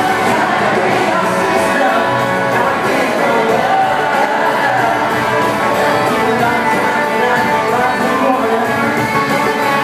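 Live band performance with a male lead vocal singing over guitars and drums, loud and steady: a country-pop song played in concert.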